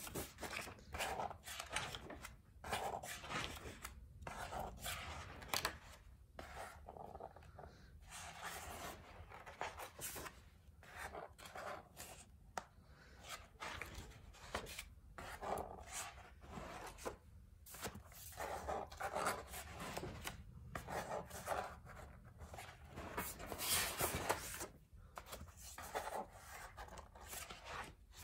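Pages of a spiral-bound paper sketchbook being turned and handled: a run of short, irregular papery rustles and scrapes.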